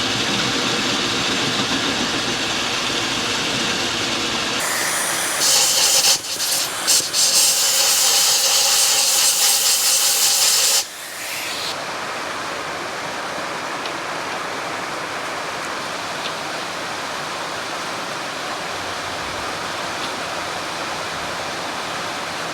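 Metal lathe running during a taper cut, against a steady hiss of rain on a metal roof. About five seconds in, a loud hiss starts abruptly, lasts about six seconds and cuts off just as suddenly.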